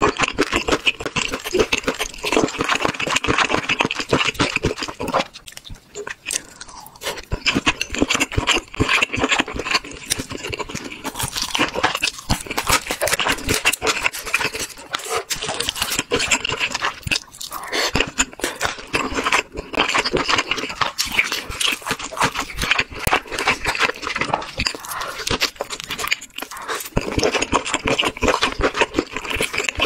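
Close-miked chewing of a large lobster-like shrimp's meat and legs: a dense run of quick mouth clicks and smacks, easing off briefly about five to seven seconds in.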